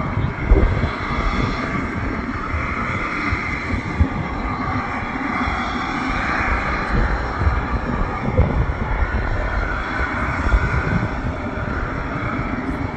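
Steady jet whine and rush from a parked Boeing C-17A Globemaster III running on the ground, with a gusty low rumble underneath.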